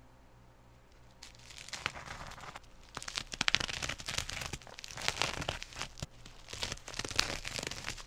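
Scissors cutting through bubble-wrap packaging, with the plastic crinkling and crackling as it is handled and pressed, a dense run of crackles and snips starting about a second in.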